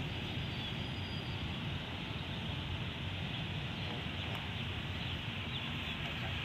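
Steady low rumble of a distant Alsthom diesel-electric locomotive approaching with its train, mixed with wind on the microphone and a few faint bird chirps.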